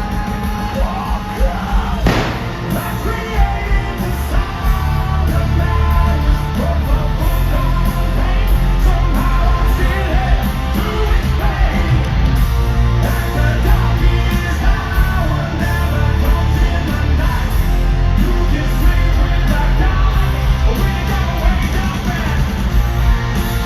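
A hard rock band playing live and loud, with heavy bass and drums, distorted guitars and shouted or sung vocals.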